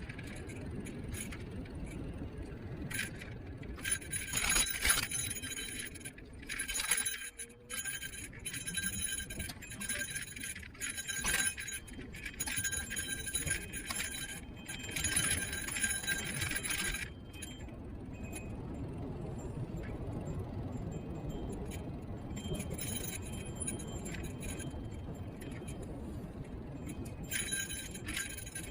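Electric kick scooter riding over pavement: steady low wind and road rumble, with long bouts of metallic jingling rattle, like loose keys, as the scooter jolts along. The rattle stops about two-thirds of the way through and comes back briefly near the end.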